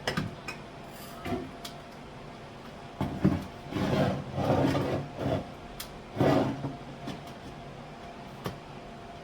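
Household items being handled and shifted about in a wooden kitchen cupboard: a couple of short knocks, then longer stretches of rubbing and scraping.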